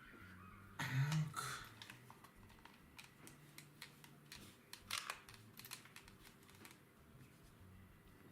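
Faint scattered clicks and light taps of small plastic headphone parts being handled and worked on.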